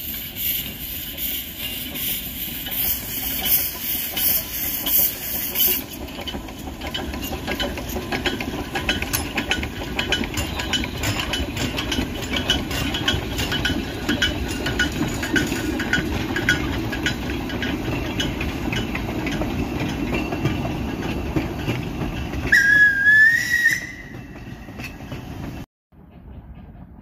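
Narrow-gauge steam locomotives: steam hissing from the engines, then a steady rapid clatter as a locomotive moves. A short steam whistle blast rising slightly in pitch sounds near the end, and the sound then cuts off abruptly.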